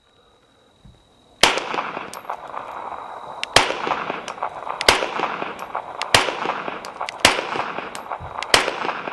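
A compensated SIG P320 X5 Legion 9mm pistol fired six times in slow, deliberate single shots, about a second and a quarter apart, starting about a second and a half in. Each shot has a long ringing echo.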